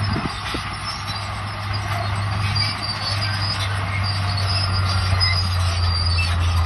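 Crawler bulldozer working: the diesel engine drones steadily while its steel tracks squeal and squeak.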